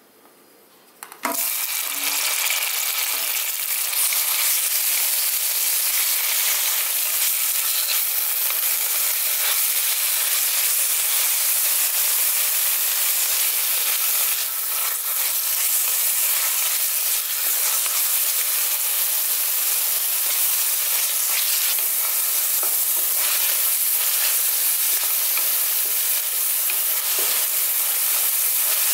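Finely chopped onion landing in hot ghee in a stainless steel pan, sizzling steadily from about a second in, with a wooden spatula stirring and scraping it as it fries.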